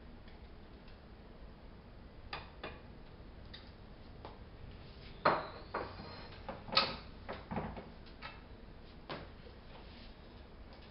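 Scattered knocks and clicks of kitchenware, with two louder clacks about halfway through, as the beaten eggs are put into the oiled frying pan.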